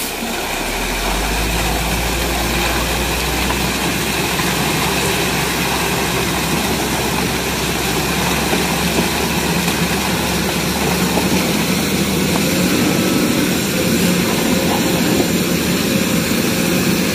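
A steady mechanical running noise, with a strong low hum in the first few seconds.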